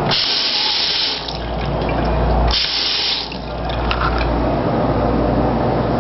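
Water gushing from a chrome faucet with wrist-blade lever handles into a sink, in two short bursts: about a second at the start, then a shorter one about two and a half seconds in. A steady low rumble runs underneath.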